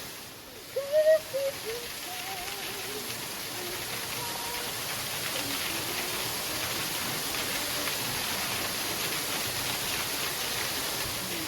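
Waterfall pouring into its pool: a steady rush of falling water that swells a little over the first two seconds and then holds even. A brief voice sound comes about a second in.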